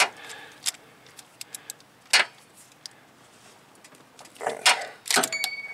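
Sparse metallic clicks and knocks of a socket wrench and extension being fitted onto the water pump bolts in a car's engine bay. One sharp knock comes about two seconds in, and a few more come near the end.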